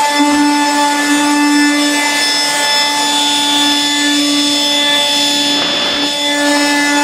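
Vax Supabroom cordless battery floor sweeper running steadily, its small motor and rotating brush giving a constant humming whine as it sweeps across a laminate floor, with a brief scrubbing rub near six seconds in.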